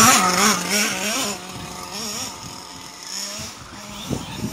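Radio-controlled model car driving, its motor running with a pitch that wavers up and down with the throttle. It is louder for the first second or so, then steadier and fainter.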